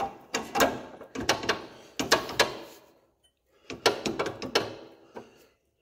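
Metal clicks and clanks of a John Deere 112 garden tractor's belt idler arm and pulley being handled and worked loose, in two bursts with a short pause about three seconds in.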